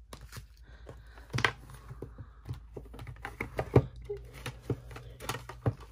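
Hands handling a plastic album case and the paper items inside it: a run of small clicks, taps and rustles, with the sharpest knocks about one and a half and about four seconds in.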